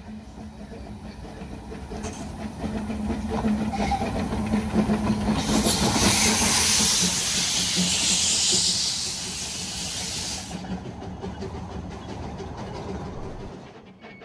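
Narrow-gauge steam locomotive passing close with its train, the sound building as it nears; a loud steam hiss runs for about five seconds in the middle, then dies away as the wagons roll by, and the sound drops suddenly near the end.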